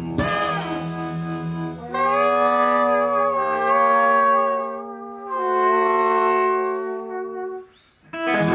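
Jazz horn section of brass and saxophone playing long held chords, two sustained chords in a row, breaking off briefly near the end before the band comes back in.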